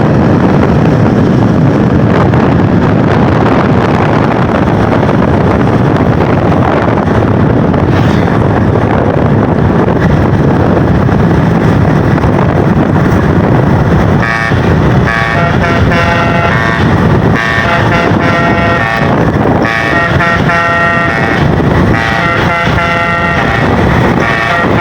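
Loud, steady vehicle noise, then about halfway through a bus's multi-tone telolet (basuri) horn starts playing a tune in short, changing notes over the engine and road noise.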